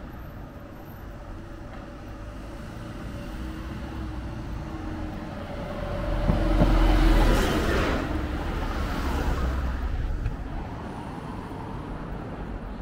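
A car driving past on the street: it grows louder to a peak a little past halfway through, then fades away, over steady street noise.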